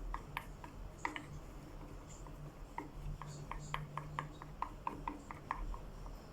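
Small irregular clicks and taps, a few a second and growing more frequent in the second half, as dish soap is squeezed a little at a time into a bowl of glue for slime.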